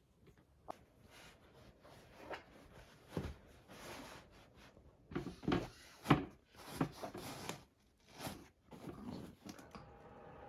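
Irregular knocks, thuds and rustling of furniture parts and household items being handled and set down, busiest in the second half with the sharpest knock about six seconds in.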